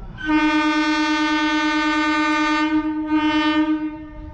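Indian Railways locomotive air horn sounding one long steady blast of about four seconds. Its sound thins briefly near the end, swells again, then fades.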